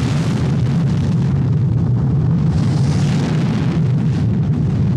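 Space Shuttle rocket exhaust during ascent, the solid rocket boosters and main engines firing: a loud, steady, rough rumble.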